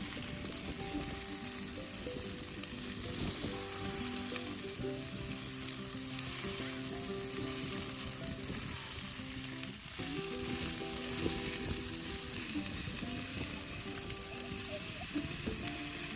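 Food sizzling as it fries in a pan, a steady crackling hiss, with soft background music of held notes underneath.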